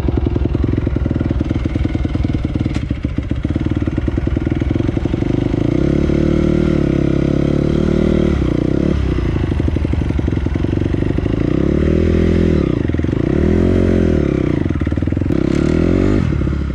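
2007 Honda CRF four-stroke motocross bike with a dual Akrapovič exhaust running: idling, then revved up and down about eight seconds in and several more times near the end as it pulls away.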